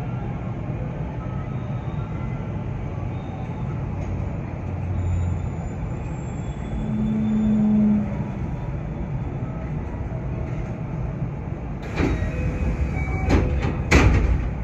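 JR West 225 series electric train standing at a station, its equipment giving a steady low hum. A short steady tone sounds about seven seconds in, and a few sharp knocks come near the end.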